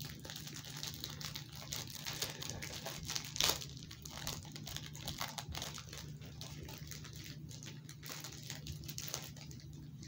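Wrapper of an individually packed chocolate snack cake crinkling and crackling as it is handled and torn open, with a louder crackle about three and a half seconds in.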